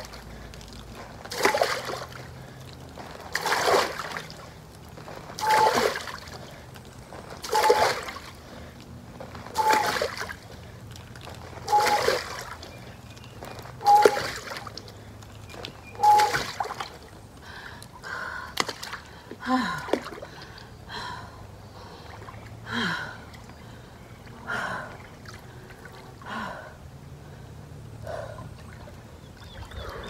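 Pool water splashed by a person's arms in an inflatable above-ground pool: a big splash about every two seconds, eight times. Then, about halfway through, smaller, irregular splashes and sloshing as she bends into the water and lowers herself in.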